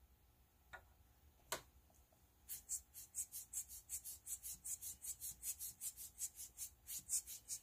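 Two light clicks, then a hand-squeezed rubber air-blower bulb puffing air in quick, even hissing puffs, about five a second, blowing at wet alcohol ink to push it across the paper.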